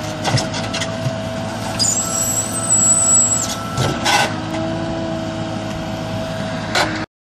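JCB backhoe loader's diesel engine running steadily under load while its rear bucket digs a trench, with scattered knocks from the bucket in the soil. A high thin whine joins in for about a second and a half in the middle. The sound cuts off abruptly near the end.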